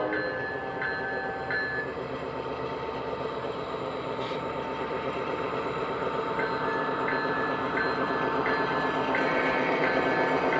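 Sound systems of G scale model diesel locomotives running as they pass close by, a steady engine drone with a steady tone, getting louder towards the end, over the roll of the train. Short high beeps repeat at a fairly even pace early on and again in the second half.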